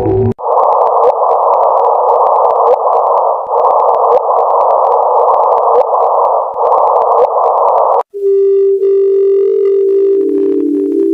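Electronic space sonification: a loud band of hiss with a steady tone under it for about eight seconds. It cuts off abruptly and is replaced by a single held electronic tone, with stepped synth notes joining near the end.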